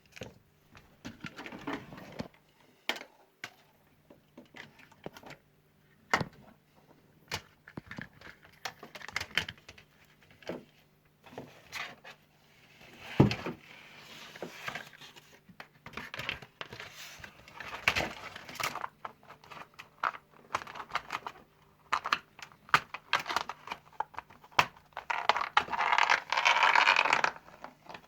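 Parts of an LED ceiling light being handled and fitted back together: irregular clicks and knocks, with several stretches of scraping and rustling, the longest near the end.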